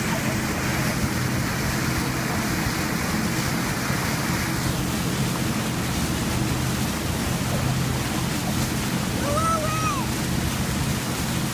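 Motorboat underway: a steady engine hum under the constant rush of churning wake water and spray, with wind on the microphone. A few short high calls sound near the end.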